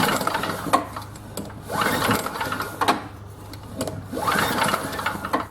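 Tecumseh lawn mower engine spun over by its recoil pull starter three times, a whirring swell with each pull about two seconds apart and light clicks between. The engine does not fire: there is no spark, which points to a dead ignition coil.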